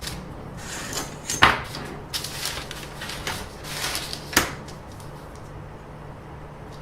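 Handling noises: a sharp knock about a second and a half in and another about three seconds later, with rustling and scraping between them.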